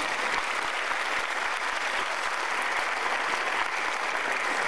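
A large audience applauding, many hands clapping at a steady level.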